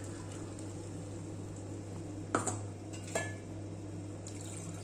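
Two sharp clinks of a metal utensil against a cooking pot, under a second apart, over a steady low hum.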